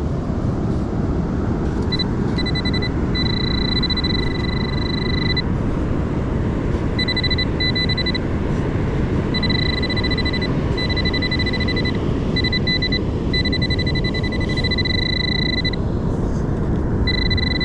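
Metal detecting pinpointer sounding a steady high electronic beep that switches on and off in stretches of up to a few seconds, as it is worked over a coin in the sand. Underneath is a continuous loud rush of storm wind and surf.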